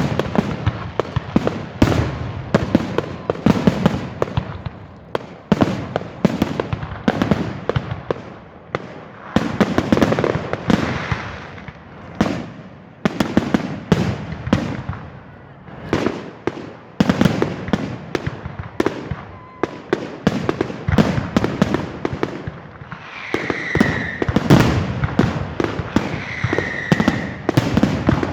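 Fireworks display: a rapid, irregular run of bangs and crackles from bursting shells throughout, with short falling whistles near the end.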